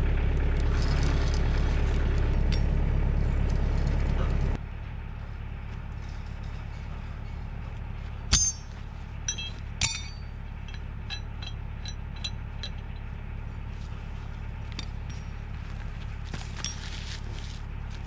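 Kioti DK40se tractor's diesel engine idling steadily, loud at first, then fainter after an abrupt cut about four and a half seconds in. Over the fainter part come scattered light metallic clinks of the skidding winch cable's hook being handled and hooked onto a tree strap.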